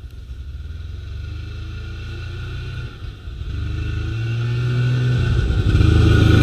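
Snowmobile engine running and speeding up, growing steadily louder with a brief drop in throttle about three seconds in.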